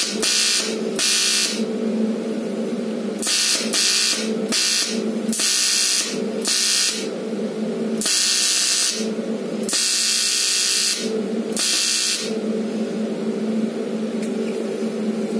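AC TIG welding arc on a cast aluminium wheel, running at about 150 amps: a steady electrical buzz with a harsh crackling hiss that cuts in and out in bursts, the bursts longer in the second half. Near the end only the buzz is left.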